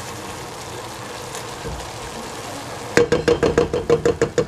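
Cabbage and rice noodles sizzling steadily in a stainless steel pot; about three seconds in, a wooden spatula starts knocking rapidly against the metal pot, about six strokes a second, and the pot rings under it.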